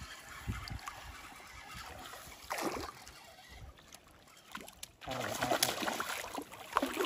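A snakehead (murrel) striking a topwater frog lure in shallow weedy water: a sudden loud splash about five seconds in, followed by continued splashing.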